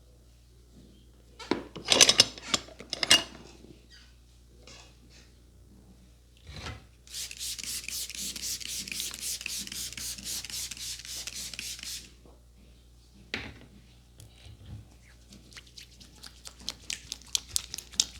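Barber's hands working over a customer's head in a vigorous head massage. About two seconds in there are a few loud, sharp hits. Later come about five seconds of fast, even rubbing over the scalp and hair at several strokes a second, and near the end a run of quick light taps.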